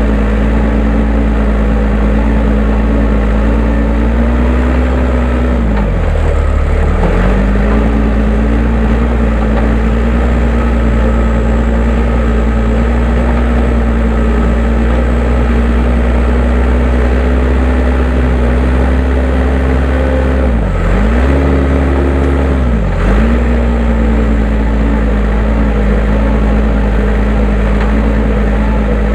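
Case 580M backhoe loader's diesel engine running steadily at high revs while scraping grass and hard soil for a firebreak. It briefly pulls down in speed under load about six seconds in and twice more around twenty-one to twenty-three seconds in, recovering each time.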